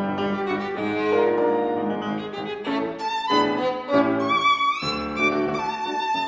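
Violin and grand piano playing classical music together, the violin carrying the melody over piano chords. About halfway through the violin moves into high, bright notes, with a quick upward slide.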